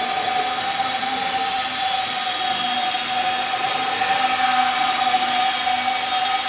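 Small electric motors of a scratch-built model VC-10 airliner in flight, a steady whine that holds one pitch over a hiss.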